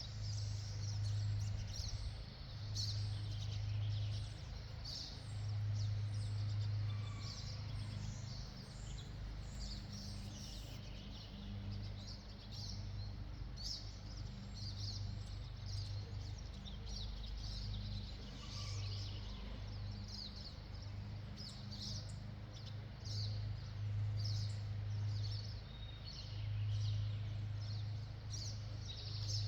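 Small songbirds chirping in quick, repeated short notes, over a low hum that swells and fades every few seconds.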